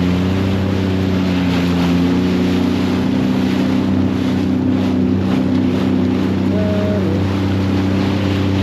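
Jet ski engine running at a steady speed, with wind on the microphone and water noise.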